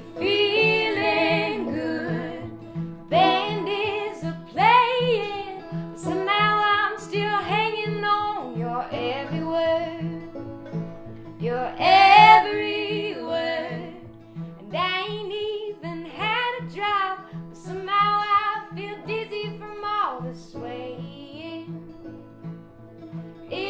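Country music: guitar and other plucked strings over a steady bass beat, with a melody line carried above them.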